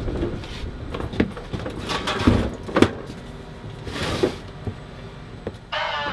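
A series of separate knocks and clunks, like doors or gear being handled, over a low rumble. Music comes in near the end.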